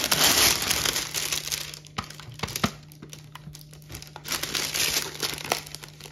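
Clear plastic protective film crinkling as it is handled and peeled back from the sticky glue surface of a diamond-painting ornament. Crinkling for the first two seconds, then a few light clicks, then crinkling again from about four seconds in.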